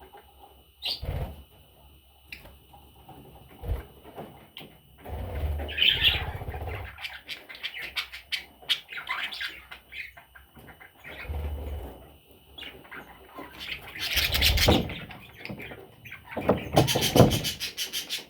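Pet budgerigar chirping and squawking in short, irregular bursts, with louder stretches of rustling and knocking mixed in.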